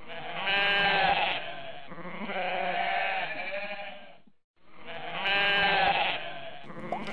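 Goat bleating: two long bleats, then the same pair of bleats again after a brief gap.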